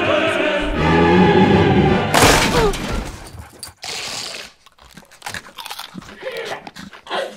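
Commercial soundtrack: dramatic music with choir-like singing, cut by a loud crash about two seconds in as the charging pug hits the glass door. After it come scattered crinkling and crunching sounds, a pug rooting in a Doritos bag.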